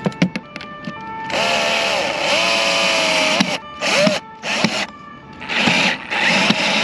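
Parkside cordless drill-driver driving a screw into a bimini frame's deck mount, its motor whining in several trigger bursts, the longest about two seconds, the pitch sagging and recovering as the screw takes load. A few light clicks come in the first second.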